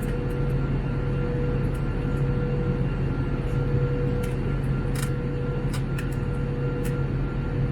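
Steady cabin noise of an Airbus A321 in flight: a constant rushing hum of engines and airflow with a few steady tones. A few faint clicks come through a little past the middle.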